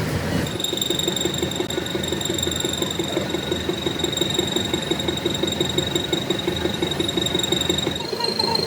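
A motor-driven machine running steadily, with a high whine and a fast, even pulsing beat.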